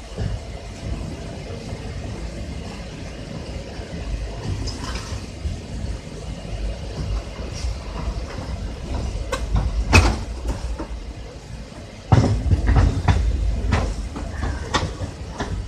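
Train coach running over the tracks at the approach to the station, heard from its open doorway: a steady low rumble of wheels on rail, broken by sharp clacks and knocks as the wheels cross rail joints and points. There is one strong clack about two-thirds of the way through, then a burst of heavier knocking soon after.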